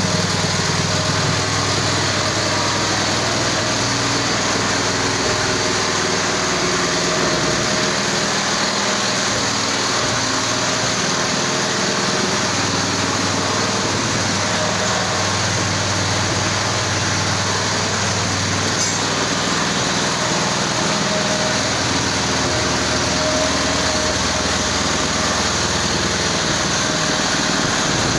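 Small petrol engine fitted to a homemade car, running steadily at an even speed.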